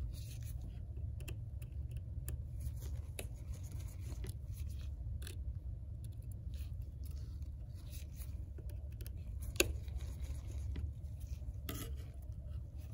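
Small tri-point screwdriver backing out the tiny screws of an iPhone X's display-connector bracket: faint scratching and ticking of the metal bit on the screw heads, with one sharper click a little before ten seconds in, over a steady low hum.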